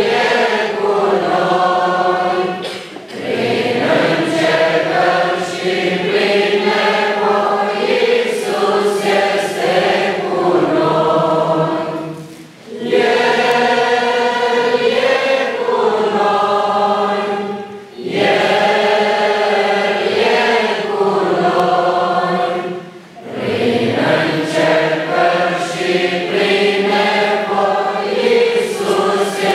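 Church congregation singing a hymn together, line by line, with short breaks for breath between the sung lines.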